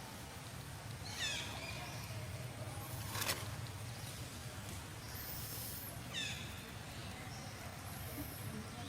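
Two short, high-pitched animal calls that fall in pitch, about a second in and again near six seconds, over a steady low rumble. A sharp click comes just after three seconds.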